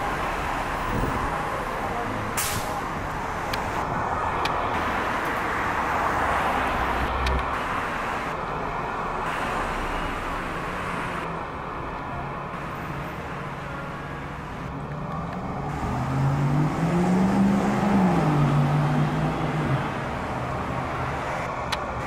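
Street traffic: a steady wash of passing vehicles. In the last third, one vehicle's engine grows louder and rises and then falls in pitch.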